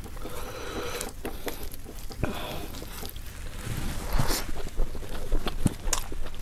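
A person eating close to the microphone: chewing and mouth sounds with scattered short clicks, growing busier and louder about four seconds in, over a low steady rumble.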